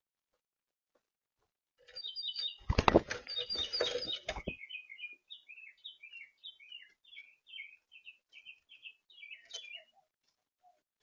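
Small birds at a feeder. About two seconds in there is a loud burst of thumps and rustling, mixed with high chirps. After that comes a run of short, high chirps, two or three a second, which stops near the end.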